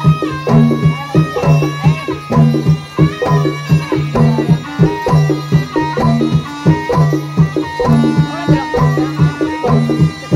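Javanese gamelan music for a kuda lumping horse dance: hand drums and struck metal instruments play a fast, evenly repeating pattern over a steady low note.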